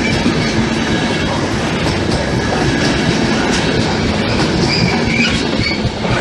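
Regional passenger train coaches rolling past along the platform: a loud, steady rumble of wheels on the rails, with brief high-pitched wheel squeals about five seconds in.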